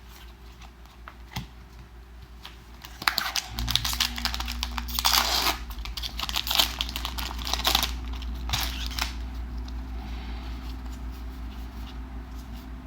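Foil booster-pack wrapper being torn open and crinkled by hand, in a run of crackling bursts over a few seconds, with a steady low hum underneath.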